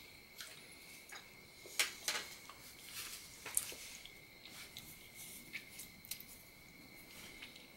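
Faint mouth sounds of someone chewing a bite of soft, gooey peach cobbler, with scattered small clicks and taps. Among them is a light plastic spoon being set down on a paper plate.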